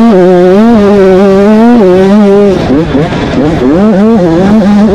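KTM 85 two-stroke dirt bike engine running hard at high revs, its pitch held high with small rises and falls as the throttle works. About halfway through the revs drop and waver briefly, then climb back to a high steady pitch near the end.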